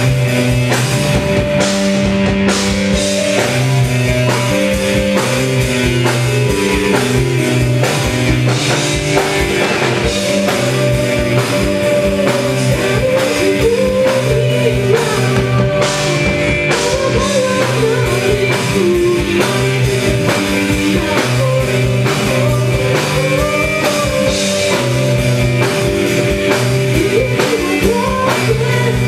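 Live rock band playing a song: keyboard, bass and drum kit with a steady beat, and a sung vocal line.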